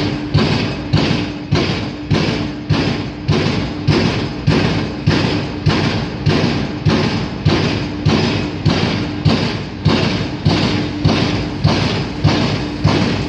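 Piling rig's impact hammer driving a pile, striking at a steady pace of just under two blows a second, with a steady hum from the rig beneath the blows.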